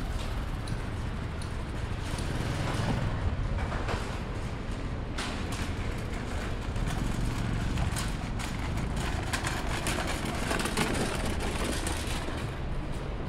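Steady city traffic noise with a low rumble, overlaid from about five seconds in by a run of light clicks and taps.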